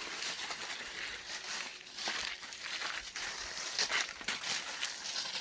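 Dry leaves and brush rustling and crunching underfoot in uneven, crackly steps.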